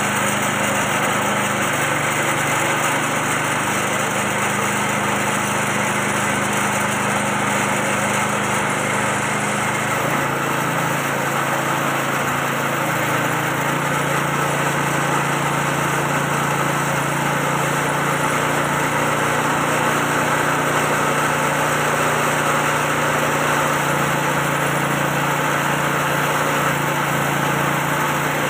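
The 6.5 hp engine of a 3-in-1 feed pellet machine running steadily under load as it extrudes a mash of ground snails, rice bran and corn into pellets. Its pitch drops slightly about ten seconds in.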